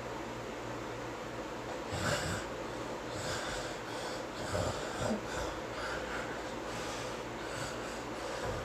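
A sleeping man snoring: a loud snore about two seconds in, then several shorter snores and breaths, over a steady background hiss.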